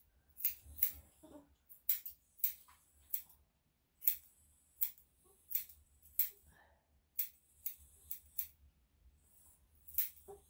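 Grooming scissors snipping the fur around a dog's hind foot: a string of short, crisp snips, irregular and a little over one a second, with two short pauses.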